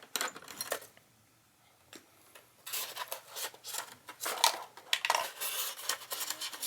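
Small metal parts of a fingerprint door lock clicking and scraping as a piece is unscrewed: a few clicks at first, then after a short pause a dense run of quick, irregular metallic clicks and scrapes.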